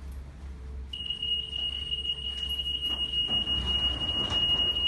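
Electronic anti-theft security gate alarm sounding one steady, high-pitched tone, starting about a second in as a person walks between the gate panels. It is the sign that the gate has been triggered.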